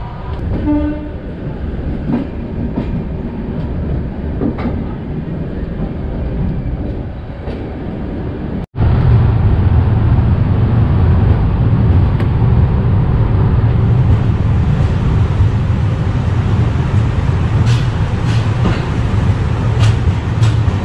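Passenger train running slowly into a station, its wheels rumbling and clattering on the rails, heard from an open coach doorway. After a cut about nine seconds in, the rumble is louder and deeper, with a few sharp clicks near the end.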